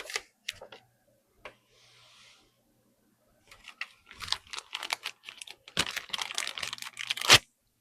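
Hands handling parts and packaging: a few light clicks, then about four seconds of dense crinkling and clicking that stops abruptly near the end.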